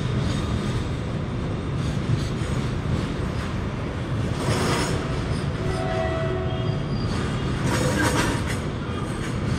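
Long freight train of empty flat wagons rolling past: a steady rumble and clatter of wheels on rail. Brief wheel squeals sound from about halfway through.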